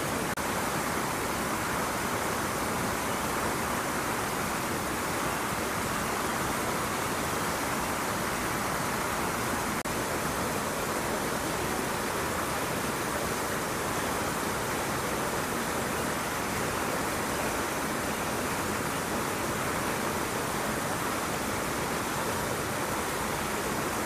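Steady, even rushing noise with no separate events and no change in loudness.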